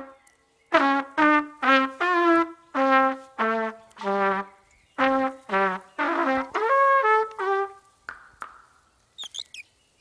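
A cartoon bird's watering can blown like a trumpet, giving a tune of about a dozen short brass-like toots. A brief high squeak follows near the end.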